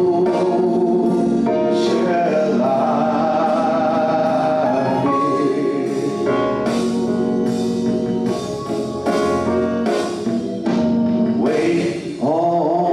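A man singing a gospel solo into a handheld microphone, with instrumental accompaniment.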